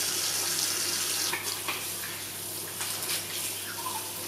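Tap running into a sink while hands are washed under it: a steady water hiss that eases after about a second and a half, leaving lighter splashing and small knocks.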